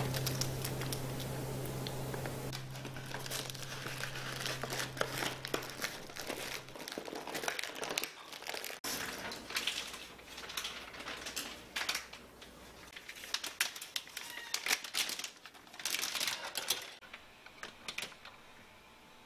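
Beeswax-coated cloth wrap crinkling and crackling in irregular rustles as hands fold and squeeze it into a pouch. Near the end a stiff food package crinkles loudly as it is handled.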